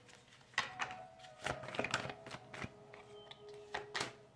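Tarot cards being shuffled by hand and dealt onto a cloth-covered table: a loose string of soft clicks and taps at irregular intervals.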